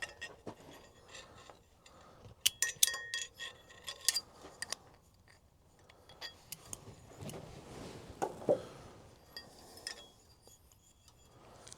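Light metallic clinks and clicks of hand tools and small metal cable parts being handled during a throttle cable repair, a cluster of ringing clinks a few seconds in, then scattered soft clicks.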